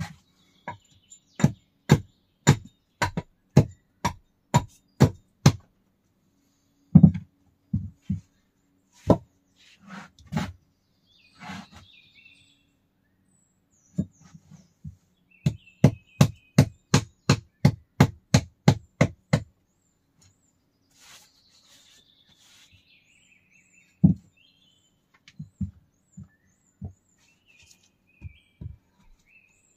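Repeated blows of a hand tool striking wood while working on the dugout's door opening: two long runs of sharp knocks at about two a second, with single knocks between. Birds chirp faintly in the background.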